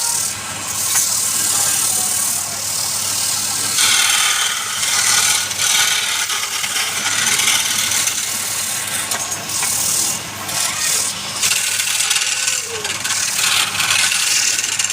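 A power tool grinding and rasping against wood, a loud, uneven, gritty hiss over a steady motor hum that swells and eases as the tool bites.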